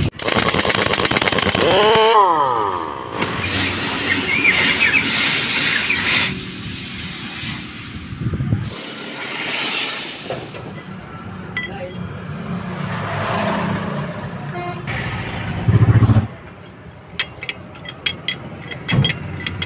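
Highway traffic noise in short, abruptly cut clips, ending with a run of sharp clicks.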